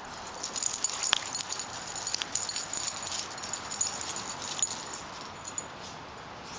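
Two French bulldogs scuffling in play, their metal collar tags jingling and clicking in quick irregular clatters that die down about five seconds in.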